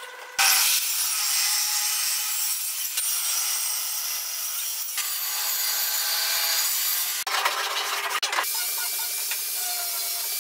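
Table saw cutting a pine board with its blade tilted for a bevel: a steady, hissing rip through the wood. It comes in several spliced takes that change abruptly about 5, 7 and 8.5 seconds in.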